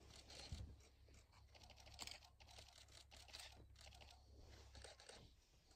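Near silence: faint scattered crackles and rustles over a low steady hum.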